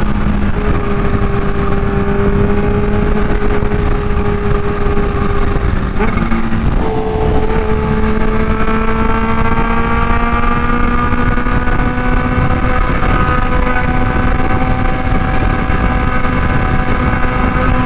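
Kawasaki Ninja H2's supercharged inline-four running through a Vandemon exhaust at highway speed, its note steady, then breaking off briefly about six seconds in and climbing slowly in pitch as the bike pulls. Heavy wind noise underneath.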